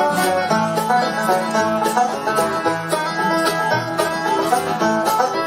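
Acoustic bluegrass band playing an instrumental break: quick banjo picking over guitar, with a washboard keeping a steady rhythm of sharp scrapes and a washtub bass plucking low notes.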